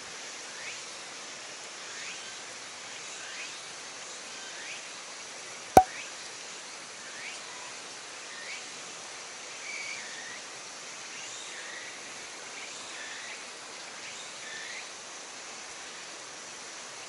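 Outdoor ambience: a steady hiss with short chirping animal calls repeating about once a second. One sharp click about six seconds in.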